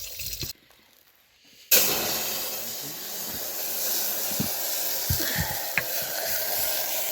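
Food sizzling in hot oil in a pan. The loud, steady sizzle starts suddenly about two seconds in, after a moment of near quiet.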